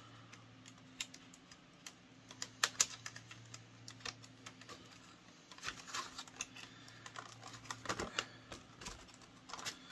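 Irregular light plastic clicks and ticks of a plastic twist tie being worked loose from an action figure's packaging, in small clusters. A faint steady hum runs underneath.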